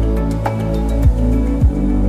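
Background music: a slow new-age piece with sustained chords and soft beats.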